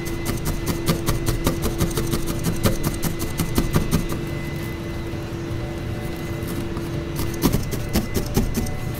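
Felting needle stabbing repeatedly through a ball of white wool into a bristle brush felting mat: a quick run of crisp pokes, several a second, that pauses about halfway through and starts again near the end.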